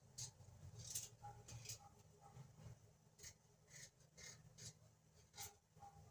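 Kitchen knife peeling a potato by hand: faint, irregular short scraping strokes of the blade, about two a second.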